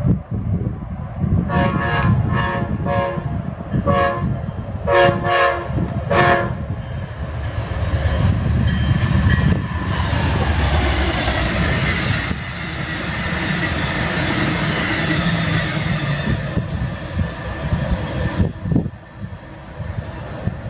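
Amtrak passenger train's multi-tone air horn played as a horn show: a quick run of about nine short blasts. Then the train passes at speed for about ten seconds, its steel wheels rumbling and clattering on the rails, and the noise drops away near the end.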